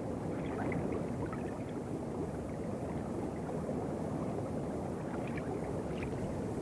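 Steady, muffled underwater water noise, a low rush with faint scattered clicks and ticks.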